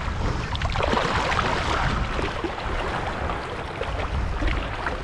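Shallow surf washing and splashing, with a low wind rumble on the microphone.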